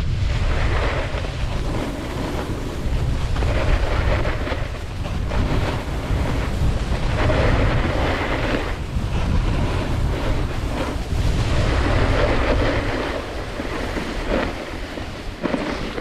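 Wind buffeting the microphone during a fast descent of a groomed ski slope, under the hiss and scrape of edges carving over packed snow, which swells every few seconds with each turn.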